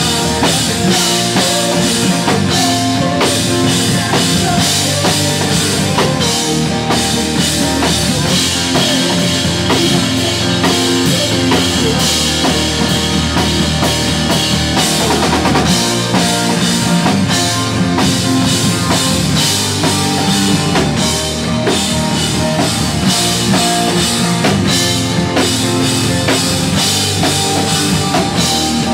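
Pop-punk band playing live, with a full drum kit and amplified guitars and bass.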